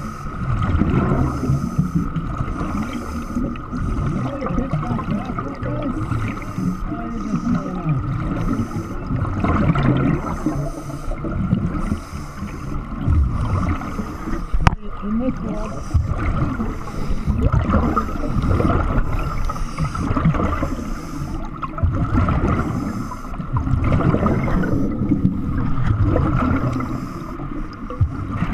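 Underwater sound of a surface-supplied diver breathing: muffled rushing and gurgling of exhaled bubbles in surges every few seconds, over a steady high hum.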